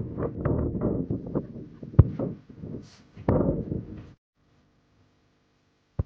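Wind buffeting the microphone in gusts, with a sharp knock about two seconds in. Just after four seconds it cuts off abruptly to near silence with a faint hum.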